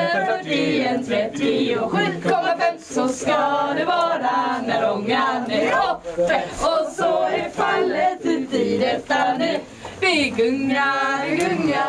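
A group of young men and women singing a Swedish song together, unaccompanied, in a lively rhythm.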